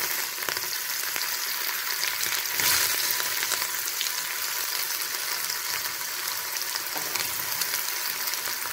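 Chopped onions sizzling as they fry in hot oil in an iron kadhai, a steady hiss that swells briefly about three seconds in.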